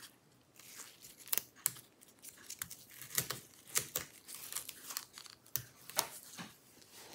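Plastic pry tool levering a laptop's battery connector plug out of its motherboard socket: a string of small, irregular plastic clicks and scratches.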